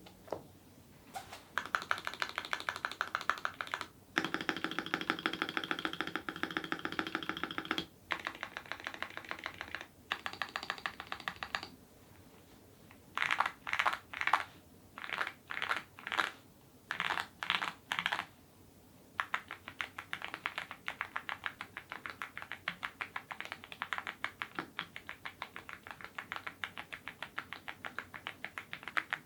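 YUNZII IF99 full-size mechanical keyboard with lubed Gateron Ink Red linear switches being typed on fast: several dense runs of keystrokes with short pauses, then a string of short separate bursts, then steady rapid typing from about two-thirds of the way in.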